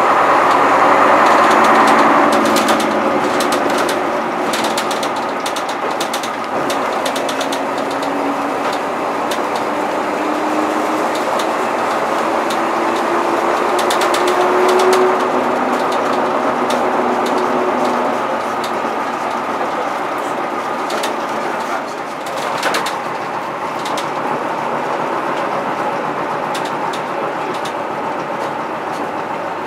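Cabin sound on board a 1966 Bristol MW5G bus under way: its Gardner five-cylinder diesel pulls with a pitch that climbs slowly through a gear and then eases off, over a constant rattle and clatter from the body and fittings.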